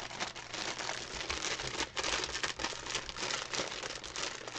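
Clear plastic wrapping around bundled diamond-painting drill bags crinkling continuously as it is handled and pulled open, with many sharp crackles.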